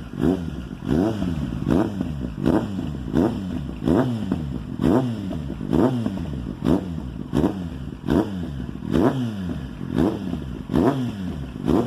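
Kawasaki Z750's inline-four engine revved in quick repeated throttle blips through a freshly fitted aftermarket sport exhaust. The pitch rises sharply and drops back a little more than once a second, about fifteen times.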